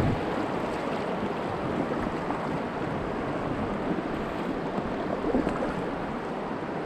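Swift river water rushing and splashing steadily around a paddled kayak, with some wind on the microphone.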